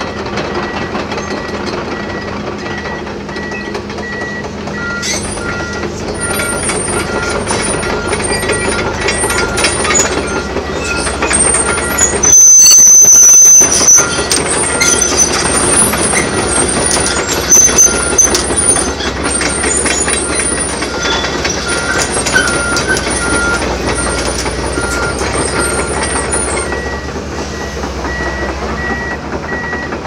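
Komatsu PC120-8 excavator travelling on its steel tracks: diesel engine running, tracks clanking and squeaking, and the travel alarm beeping in a steady rhythm. About twelve seconds in, a very loud harsh blast lasts about a second and a half.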